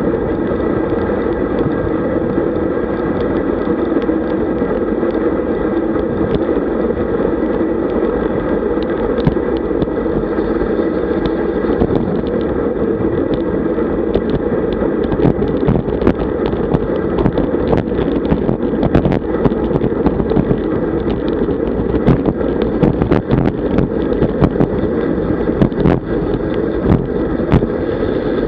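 Wind rushing over the microphone of a camera on a moving road bike, a steady loud rumble of air and road noise. From about halfway through, frequent sharp clicks and knocks break in as the bike rattles over the road.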